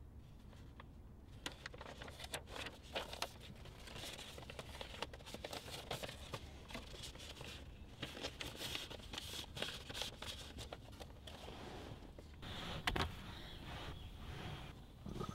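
Paper rustling and crinkling in irregular bursts with sharp crackles, as a case-file sheet and an envelope are handled; a single thump about thirteen seconds in.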